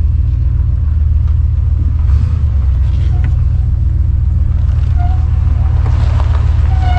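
Old pickup truck's engine running steadily, a low rumble heard from inside the cab. From about five seconds in, a short electronic beep repeats roughly once a second.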